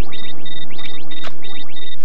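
A quick run of short, high electronic beeps at two fixed pitches, a synthesized computer-display sound effect, stopping near the end.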